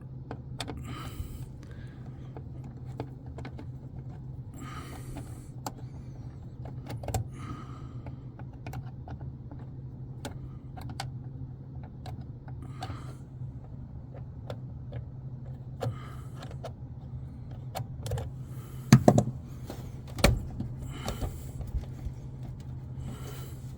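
Hands working the wire connectors on a humidifier canister: scattered small metallic clicks, rattles and rustles, with two louder knocks near the end, over a steady low hum.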